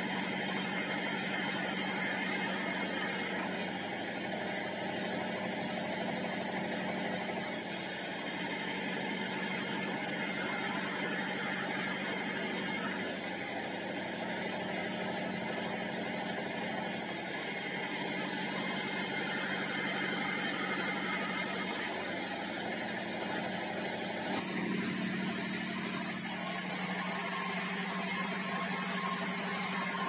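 Large sawmill band saw and its drive running steadily with a continuous mechanical drone and hum. About three-quarters of the way through, a brighter, hissier sound joins and carries on.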